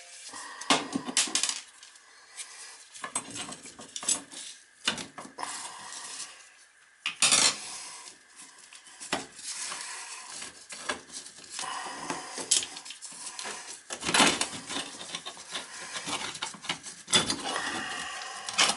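Loose screws and small metal hardware clinking and rattling as they are rummaged through, in irregular clatters and knocks with a few louder ones.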